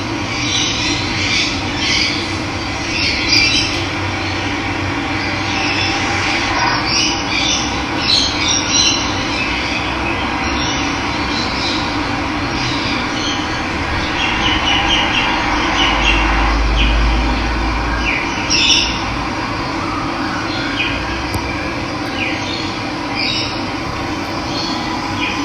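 Steady rush of running water, with birds chirping and calling over it throughout.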